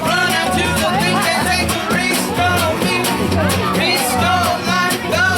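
Rock band playing a song with drums, bass, guitar and a singing voice, over a steady beat.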